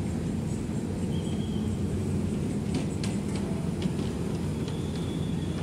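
Mercedes-Benz OH1526 coach's diesel engine running with a steady low rumble as the bus drives slowly past.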